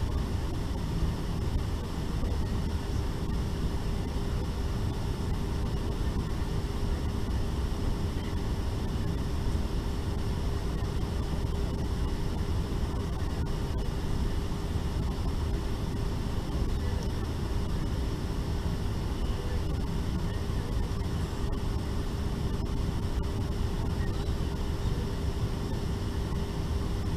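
Steady rush of cabin air-conditioning in a Boeing 777-300ER with its engines not yet started, under a constant mid-pitched hum.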